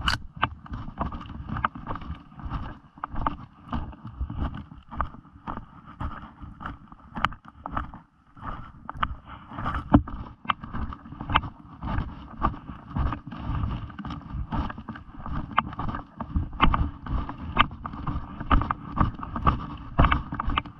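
Quick, hurried footsteps crunching through deep snow in a steady rhythm, with clothing and brush rustling against a head-mounted camera.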